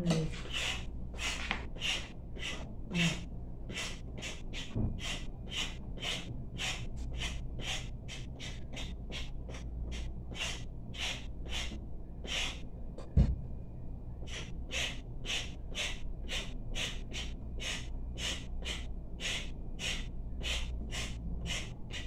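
A blade scraping the skin off a carrot in quick, even strokes, about two a second. It pauses briefly past the middle, where there is one sharp knock on the counter.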